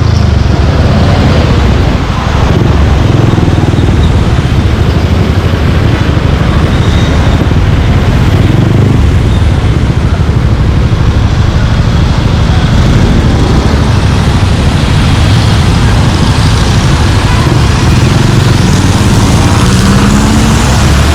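Suzuki Gixxer 155 single-cylinder engine running steadily and loud as the motorcycle is ridden, mixed with street traffic noise.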